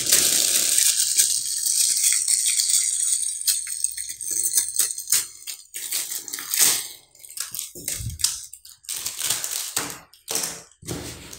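Clear plastic bag crinkling and crackling as a hamster water bottle is unwrapped from it: a continuous rustle for the first few seconds, then a run of sharp crackles and clicks.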